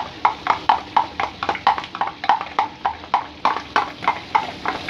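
Metal spatula scraping and knocking against a wok while stirring thick peanut sauce, in quick even strokes of about three to four a second.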